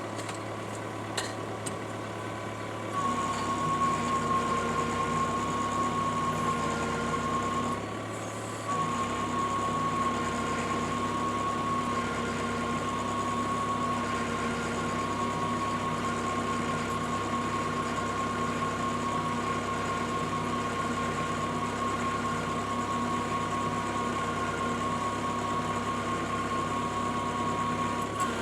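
Auger rig driving a 450 mm earth auger, running steadily with a high whine over a lower hum. It gets louder about three seconds in and cuts out briefly about eight seconds in before carrying on.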